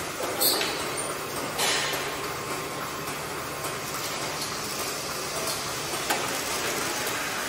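Truck assembly-hall machinery noise: a steady, even mechanical din with two short bursts of hissing, about half a second and a second and a half in, and a small click near the end.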